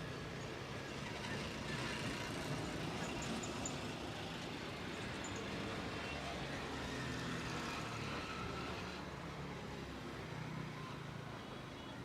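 Roadside traffic noise: a steady wash of passing vehicles with a low engine hum, easing slightly near the end.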